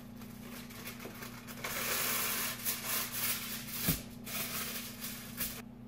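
Plastic bread bag crinkling and rustling as a loaf of French bread is pulled out of it, loudest from about two seconds in. There is a single knock about four seconds in, over a steady low hum.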